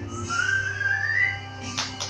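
Background music, with one smooth rising whistling tone about half a second in that lasts about a second.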